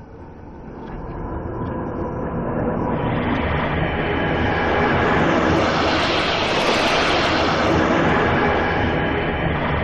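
Designed sci-fi space-storm swoosh: a wind-like rushing noise that swells over several seconds, peaks in the middle and starts to ease near the end. A faint steady tone runs inside the rush.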